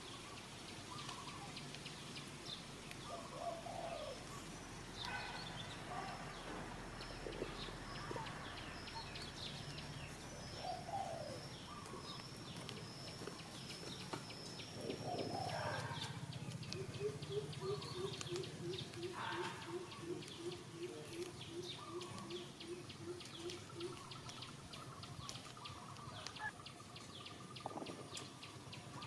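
Outdoor birdsong: scattered chirps and short calls, with a thin high trill through the first half and, past the middle, one bird repeating a low note about three times a second for several seconds.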